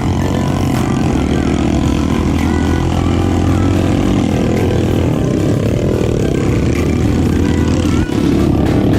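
Trail motorcycle engine running steadily, with a brief drop in level about eight seconds in.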